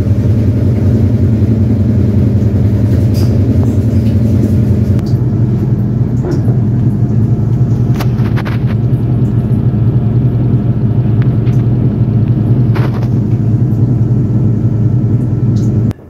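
Haier top-loading automatic washing machine in its spin cycle: the drum spinning with a loud, steady motor hum and a few clicks.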